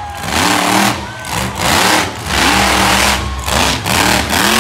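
Monster truck engine revving hard in repeated surges, its pitch climbing and falling about once a second as the throttle is blipped.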